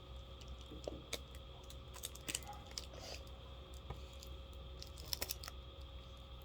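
Scattered light clicks and crinkles of a package's wrapping and tape being handled and opened by hand, with a quick run of several clicks about five seconds in.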